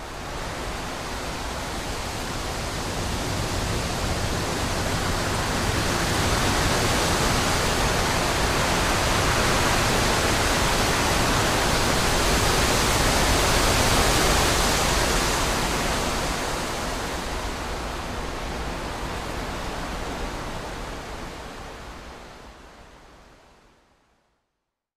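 Wind blowing through trees: a steady rushing noise that swells to its loudest around the middle, then dies away to silence near the end.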